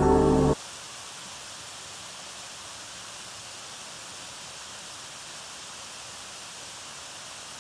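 A small woodland waterfall rushing steadily, an even hiss of falling water. Background music cuts off about half a second in.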